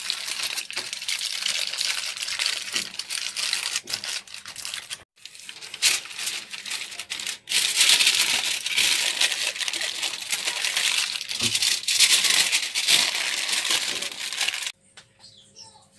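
Aluminium foil crackling and crinkling as hands crumple and fold it tightly around a fish, with two short breaks partway through. The crinkling stops about a second before the end.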